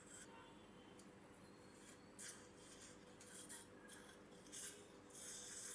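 Near silence: a faint steady hum, with several brief soft hissing scrapes.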